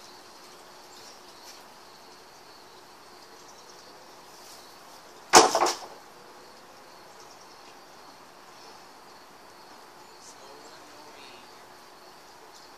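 One loud knock with a short clatter after it, about five seconds in, over faint insect chirping.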